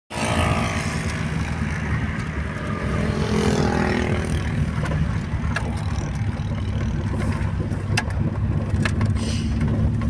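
Car driving along a dirt road: a steady low engine and road rumble, with a few sharp clicks in the second half.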